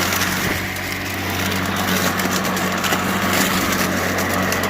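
Greenworks 80V battery-powered push mower running steadily, its spinning blade giving a low, even hum, with scattered small crackles of leaves and debris going through the deck in mulch mode.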